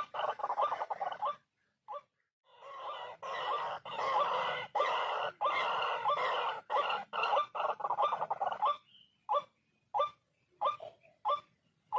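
White-breasted waterhen calling in quick runs of short repeated notes, with a brief pause about a second and a half in. From about nine seconds on the calls come singly, about two a second.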